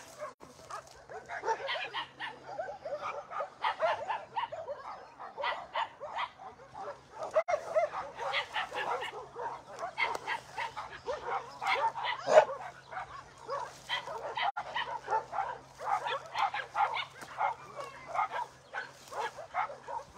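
Dogs barking and yelping over and over, several short calls a second with no real pause, one call louder than the rest about twelve seconds in.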